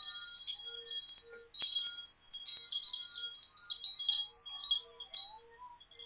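Small hand bell shaken repeatedly, ringing in quick irregular strokes with a high, bright tone, and one sharp clack about one and a half seconds in.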